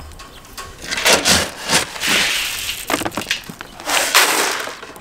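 Dry grain feed poured from a container into a plastic feed pan, hissing in two pours about two seconds in and again near the end, with scattered clicks and rustles before.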